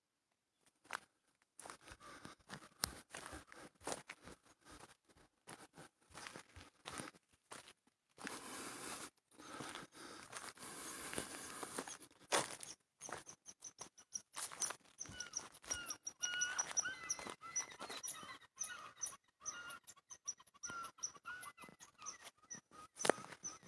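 Small birds chirping in short, repeated high notes, picking up from about halfway through, over irregular clicks, crackles and bursts of hiss from outdoors.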